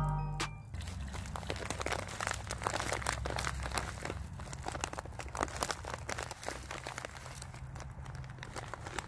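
A paper packet crinkling and rustling in irregular bursts as it is shaken out over a camp pot, dry rice mix pattering in. The tail of background music ends in the first second.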